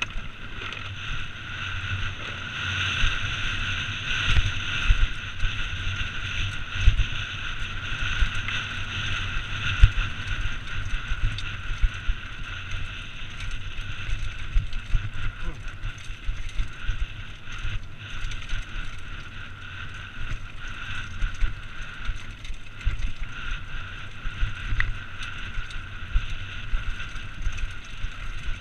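Mountain bike descending a rocky downhill trail at speed: a continuous rumble of tyres and suspension with frequent sharp knocks over rocks, a steady high buzz over it, and wind on the helmet camera's microphone.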